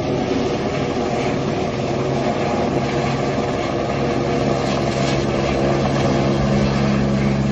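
Helicopter hovering overhead, its rotor and engine running steadily.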